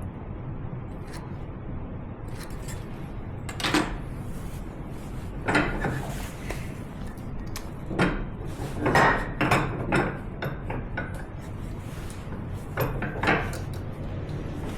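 Several irregular short knocks and clatters, like wood or tools being handled, over a steady low hum.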